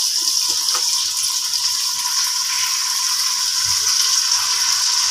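Onion, garlic and yogurt masala sizzling steadily as it fries in oil in a pot, stirred with a spoon: the bhuna stage, where the masala is fried down.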